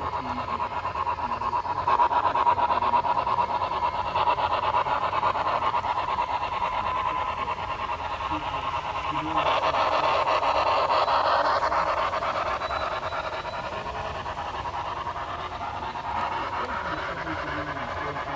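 HO-scale model steam locomotive running with a fast, breathy steam chuff from its onboard sound system. The chuffing swells about two seconds in and again near the middle.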